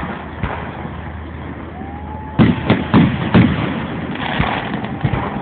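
Aerial fireworks going off: a short whistle, then a quick run of loud bangs about halfway through as the shells burst, followed by crackling.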